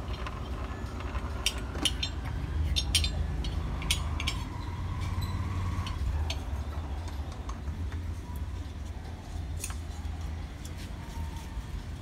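Epson L3150 ink-tank printer running its head-cleaning cycle: a steady low hum from the pump and carriage mechanism, with scattered sharp clicks and ticks mostly in the first few seconds and a faint whine for a few seconds near the middle.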